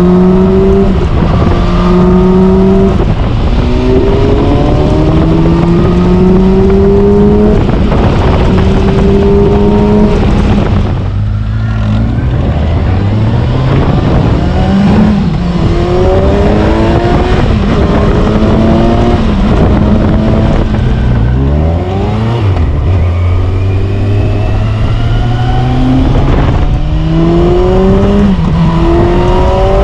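2018 Kawasaki Versys 1000 GT's inline-four engine through an Akrapovic exhaust under way, pulling up through several gears with the pitch climbing and dropping back at each upshift. It eases off and falls to a low, steady note about a third of the way in and again about two-thirds in, then pulls through the gears again, with wind rushing over the microphone.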